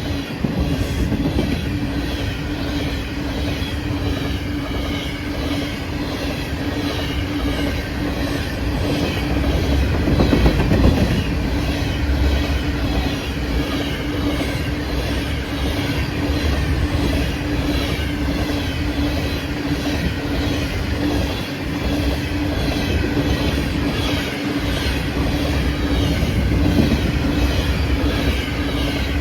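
A train rolling past on the mainline: a continuous rumble of steel wheels on rail with rapid, regular clicking and a steady tone.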